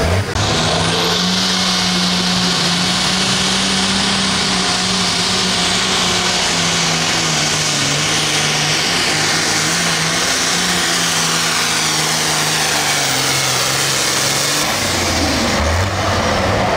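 John Deere super farm pulling tractor's turbocharged diesel engine at full throttle dragging the weight-transfer sled, its pitch slowly sagging as the load builds. About fifteen seconds in the throttle comes off as the pull ends.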